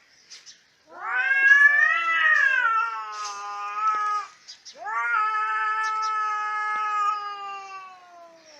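Cat caterwauling, the threat yowl of cats squaring up to fight: two long, drawn-out howls. The first rises and then falls in pitch; the second holds level and slowly sinks.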